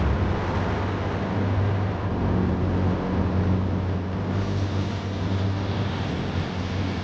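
Steady low rumble of a car heard from inside the cabin: engine hum and road noise.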